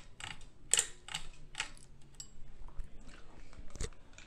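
Hampton Bay Huntington III ceiling fan just switched on to low speed: a faint low motor hum under a string of sharp, irregular clicks and ticks.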